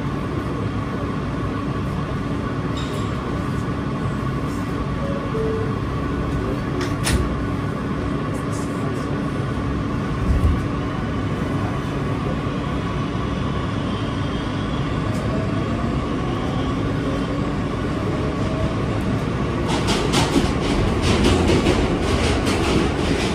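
Subway train heard from inside the car: a steady hum and rumble while it stands at the station, a click and a low thump as the doors close, then the train pulls out, with fast wheel clicks over the rail joints in the last few seconds.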